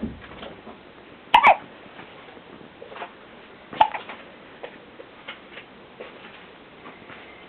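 Hiccups: two loud, sharp ones about two and a half seconds apart, the first of them doubled, with fainter small hiccup-like sounds in between.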